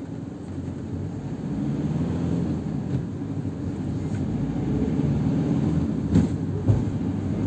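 A car driving along a road: low engine and road rumble that grows louder over the first couple of seconds and then holds, with a couple of brief knocks near the end.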